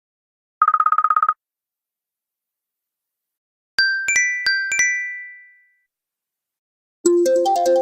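Apple phone alert tones played back to back. First comes a short, fast-pulsing buzzy trill. After a pause, a quick run of about five bright chime notes rings out and fades. Near the end a fuller ringtone melody begins.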